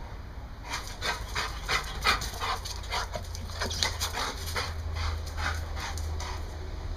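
American bulldog panting, quick breaths at about three a second.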